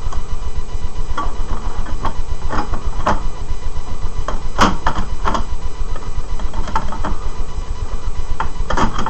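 Scattered plastic clicks and taps from an opened DVD drive's casing and frame being handled and fitted back together, over a steady low rumble.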